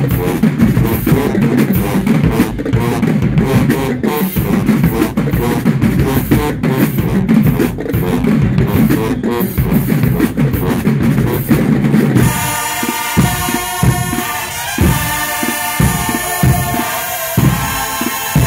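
Marching band playing: massed brass over a driving drum beat. About twelve seconds in the low brass drops out suddenly, leaving drum hits under higher held notes.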